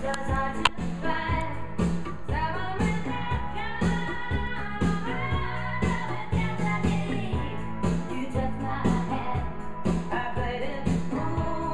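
Pop music with a singer over a steady beat.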